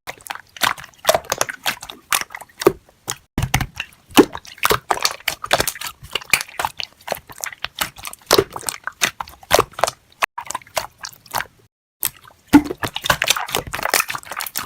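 Close-miked ASMR eating sounds: crunchy bites and wet, clicky chewing, irregular and dense. They break off for a moment of silence about twelve seconds in, then resume.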